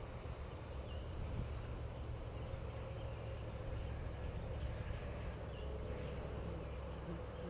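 Steady low rumble of wind on the microphone, with a faint steady hum and a few short, faint high chirps.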